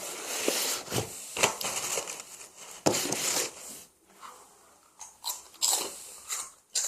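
Crunchy snack being bitten and chewed close to the microphone, a series of irregular crackly crunches with a short pause midway.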